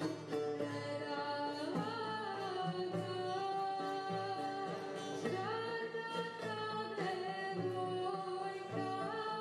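Live traditional Serbian folk music: a long-necked plucked lute played with a quick plucked accompaniment, joined by a voice singing long notes that slide up and hold.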